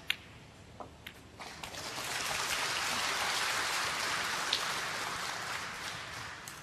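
Snooker balls clicking as the shot is played: a sharp click at the start and two more about a second in. Audience applause then builds and fades over about five seconds.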